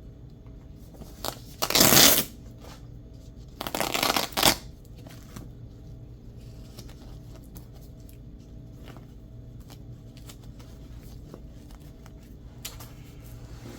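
Velcro patch being ripped off a backpack's hook-and-loop panel: two short rasping rips about two seconds apart, followed by faint handling clicks.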